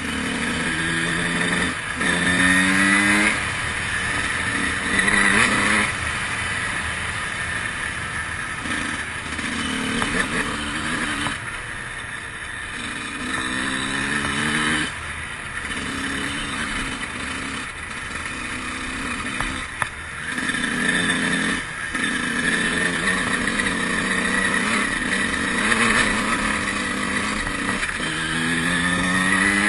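2003 Honda CR125's 125cc single-cylinder two-stroke engine under way, revving up in rising pitch and dropping back again and again as the rider rides on and off the throttle.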